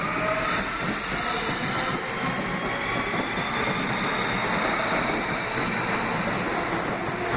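R160B subway train with Siemens propulsion accelerating out of the station: a steady rumble of wheels on the rails, with a faint high whine from the traction motors slowly rising in pitch.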